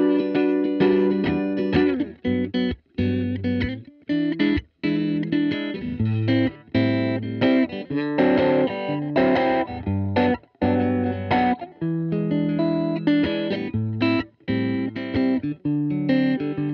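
Electric guitar played through a six-band EQ pedal: a picked riff of short, clipped notes and chords with brief gaps, its tone shifting as the EQ knobs are turned, brighter for a second or two about eight seconds in.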